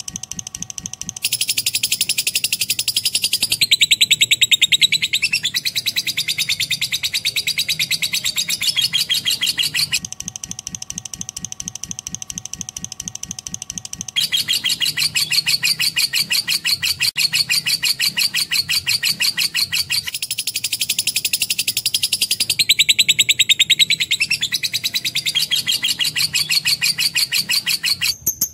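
Lovebird singing a long, fast, unbroken high chatter. It is softer for about the first second and again for a few seconds near the middle.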